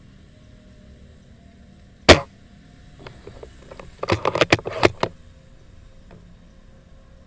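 Airsoft gun shots: one sharp, loud crack about two seconds in, then a quick run of about eight cracks about four seconds in.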